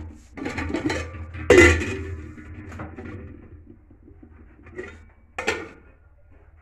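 Pots, dishes and utensils clattering and knocking together as they are handled. The loudest clank comes about one and a half seconds in, and two shorter knocks come near the end.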